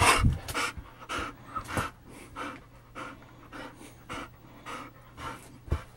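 A pit bull-type dog panting close up: quick, regular breaths, about two a second, loudest at the start.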